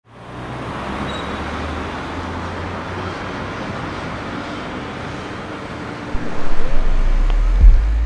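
Street traffic noise: an even rush of passing cars, fading in at the start. About six seconds in, a deep bass rumble comes in and becomes the loudest sound.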